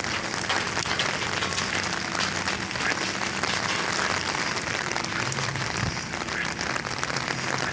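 Steady patter of rain, an even crackle of many small drops.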